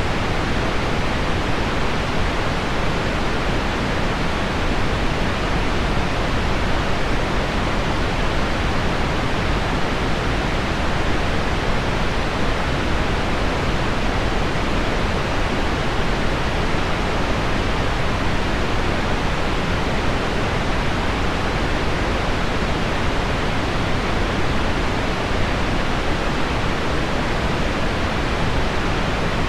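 Steady, even pink noise blended with heavy rain on window glass, forming one unbroken rushing hiss with no separate drops standing out.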